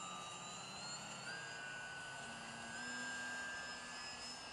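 Motor and propeller whine of an RC foam delta-wing plane in flight, a steady whine whose pitch steps up twice as the throttle changes.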